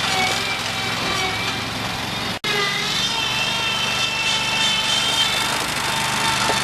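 Terramite T5C backhoe loader's engine running steadily, with a high wavering whine over it. The sound cuts out for an instant about two and a half seconds in, then resumes.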